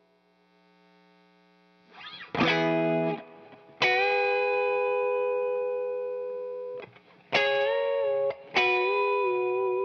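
Electric guitar played through an Ibanez CP10 compression sustainer pedal. After a near-silent start, a chord rings out, then a single note is held for about three seconds, fading only slowly. Near the end come two more notes, bent up and back.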